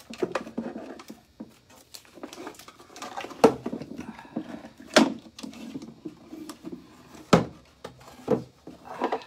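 Bungee cords being handled around a wooden desk drawer, with rustling and about five sharp knocks against the wood. A shorter cord is taken off and a longer one stretched around the drawer to clamp its freshly glued joints.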